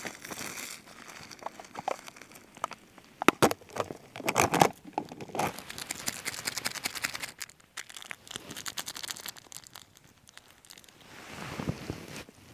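Crinkling, rustling and tearing of a food container's packaging being handled and opened, with irregular sharp clicks, loudest a few seconds in.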